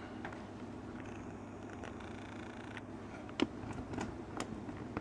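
A low steady hum with a few light, sharp clicks during the second half.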